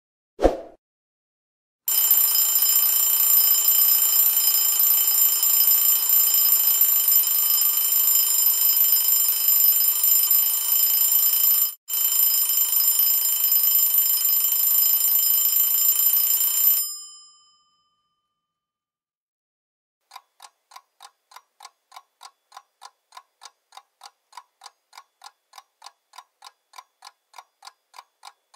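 A short click, then an alarm clock ringing loudly and continuously with a bright metallic ring, breaking off for an instant midway before fading out. After a pause a clock ticks steadily, about three ticks a second.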